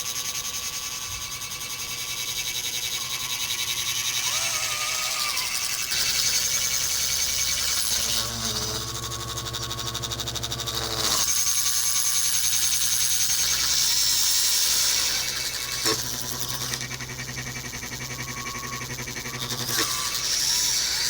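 Small electric drive motors of radio-controlled model construction machines whining as they work, with short rising and falling pitch changes as the models move and shift their load.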